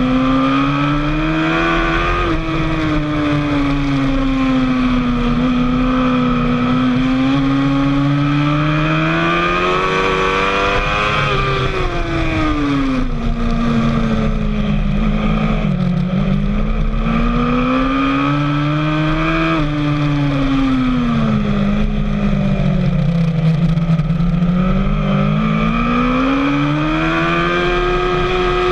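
Sport motorcycle engine heard from on board at a race track, its note climbing and falling over and over as it accelerates and slows, with sudden pitch drops at gear changes.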